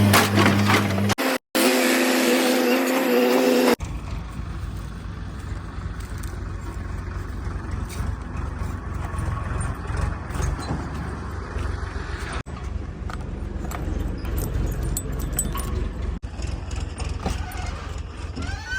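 Steady electronic tones for the first few seconds, then heavy diesel machinery running: a continuous low engine rumble with frequent metallic clinks and rattles.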